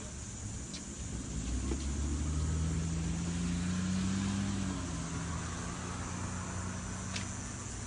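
A motor vehicle engine running, growing louder about a second and a half in and easing back after about five seconds.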